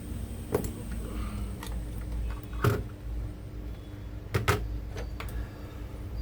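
Several sharp clicks and taps of small parts and tools being handled on a laptop motherboard, the loudest about two and a half seconds in and a quick double tap past the four-second mark, over a steady low hum.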